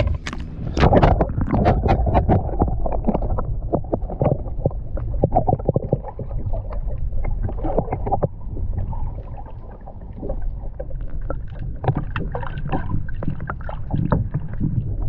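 Wind rumbling over the microphone on a kayak on open water, with many irregular knocks and splashes from gear and water against the hull.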